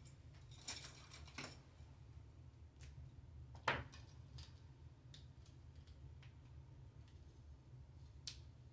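Plastic Lego Technic pieces being handled and pressed together: sparse light clicks and rattles, with one sharper snap about four seconds in and another near the end, over a steady low hum.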